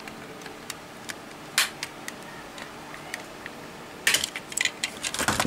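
Plastic casing of a Singer TV remote being pried apart along its seam with a screwdriver: scattered small clicks and snaps of the plastic clips, a sharper snap about one and a half seconds in, and a quick run of clicks near the end.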